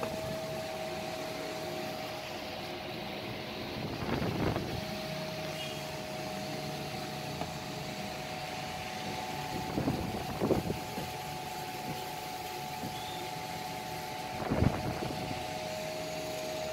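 A few soft knocks and rubs as a hand shifts a titanium dual exhaust on a tabletop: about four seconds in, twice around ten seconds, and again near the end. Under them runs a steady fan-like hum with a constant tone.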